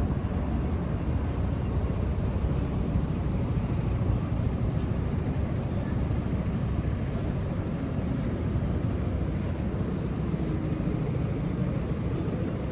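Steady low rumble of outdoor street noise with no distinct single event.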